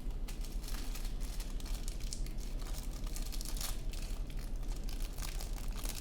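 Plastic crinkling and rustling as it is handled: a dense, steady run of small crackling clicks over a low steady hum.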